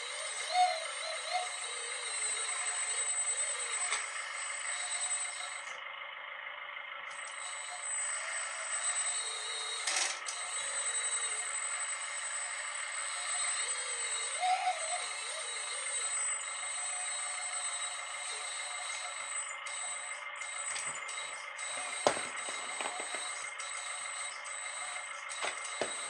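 Small electric motors, gearing and hydraulic pumps of radio-controlled construction models running with a steady whine, with a few sharp clicks.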